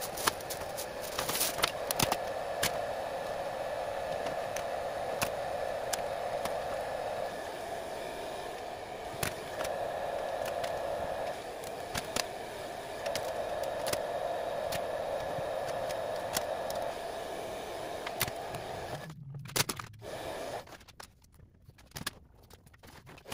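Vinyl wrap film being stretched and smoothed with a squeegee over a golf cart's plastic body panel: scattered crackles and scrapes over a steady background hiss, which drops out for the last few seconds.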